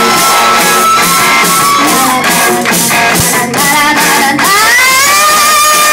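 Live rock band playing: women singing over electric guitar and drums. The held vocal note breaks off about two seconds in for a run of steady drum hits, and the singing comes back with a rising note about four seconds in.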